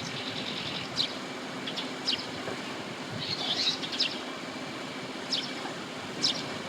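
Red-rumped swallows calling: short high chirps, about one a second, some in quick twittering clusters, over a steady background noise.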